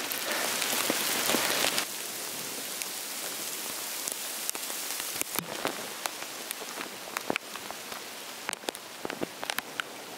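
Heavy rain and hail, with a steady hiss of falling rain and many sharp ticks of large hailstones striking. The hiss is heaviest for the first couple of seconds and then eases a little.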